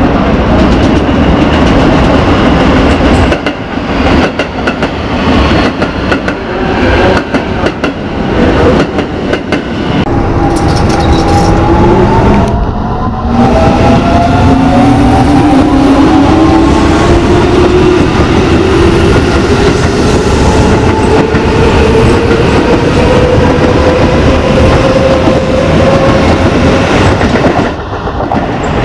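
Keio Line electric commuter trains: wheels clattering and rumbling over the rails as one train runs past, then the motor whine of an approaching train, several tones climbing steadily in pitch as it gathers speed.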